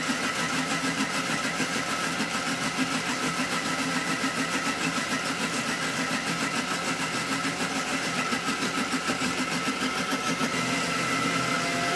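Electric mixer grinder (mixie) motor running steadily at an even pitch, wet-grinding soaked rice and beaten rice with water into smooth dosa batter.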